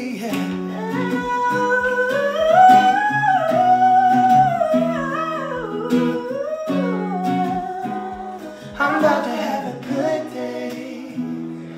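Wordless sung melody, a voice gliding up and down like humming or an 'ooh', over electric guitar chords.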